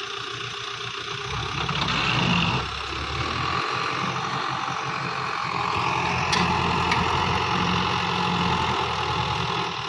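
Ford 5880 tractor's diesel engine running under load as it drags a tined cultivator through a tree, working harder from a little past halfway.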